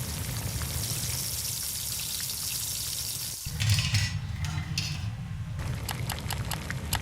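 Layered sound effects: a steady hiss like water or sizzling, then about three and a half seconds in an abrupt cut to a low rumble with a run of sharp clicks.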